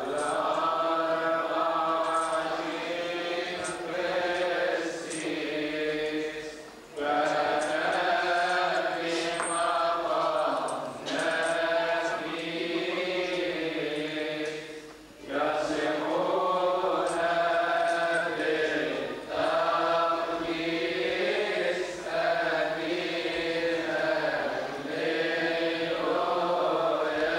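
Voices chanting a Coptic Orthodox liturgical hymn together in long, slowly moving phrases, with short breaks about seven and fifteen seconds in.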